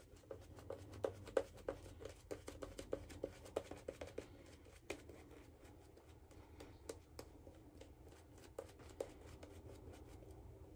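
Shaving brush swirled over a lathered face, wet lather squishing and clicking in a quick run of soft strokes that thin out after about five seconds.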